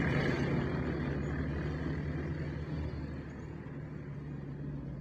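Half-track armoured vehicle driving past and away: a steady engine note under the noise of its running gear, fading gradually as it recedes.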